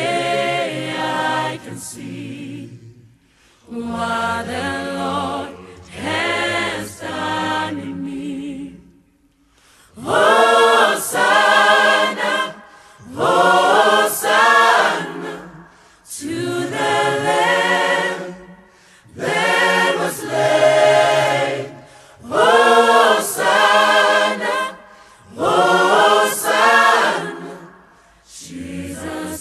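Choir singing a cappella in several voices, in short phrases with brief pauses between them.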